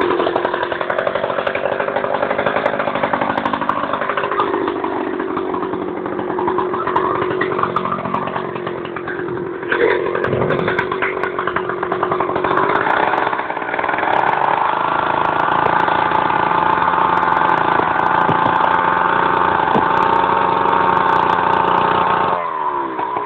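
Chainsaw cutting through a frozen cow carcass, its engine pitch rising and falling under load. In the second half it holds at high revs for a long stretch, then drops back sharply near the end.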